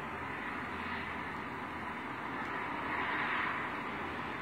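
Steady background hiss with a low rumble underneath and no distinct events, swelling slightly about three seconds in.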